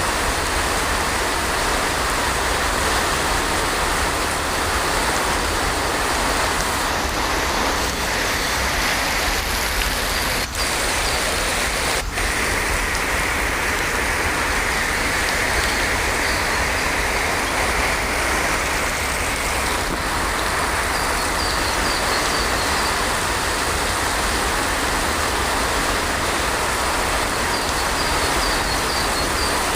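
Heavy rain falling steadily, a dense even hiss of water, with two brief dips in level about ten and twelve seconds in.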